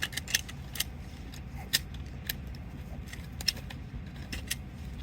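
Scattered rifle shots from C7A2 5.56 mm rifles firing on the range: about ten sharp, irregular cracks from several shooters, over a steady low rumble.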